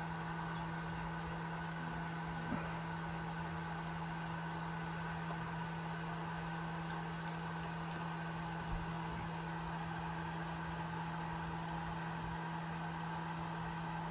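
A steady low hum with room noise, and a couple of faint short clicks, about two and a half and nine seconds in.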